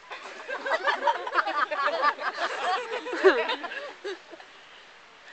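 A young woman babbling rapid nonsense syllables instead of real words, her voice jumping up and down in pitch. It stops about four seconds in.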